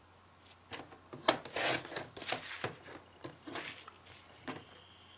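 Scissors snipping the corners off a scored square of cardstock: a string of short, sharp snips mixed with the rustle of the card being handled.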